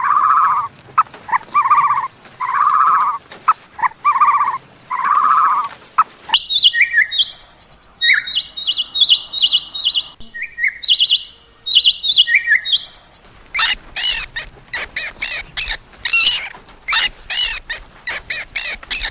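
A run of animal calls: five evenly spaced pitched calls about a second apart, then a bird's song of short high chirping notes, then rapid, very high chirps near the end.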